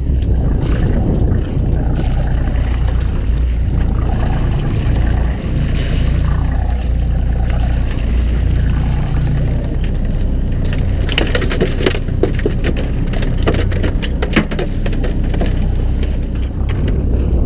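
Fishing boat's engine running with a steady low hum. A rapid scatter of sharp clicks and knocks starts about ten seconds in and lasts several seconds.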